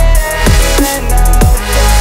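Background music: the instrumental stretch of a rap track, heavy sustained bass with a steady kick-drum beat.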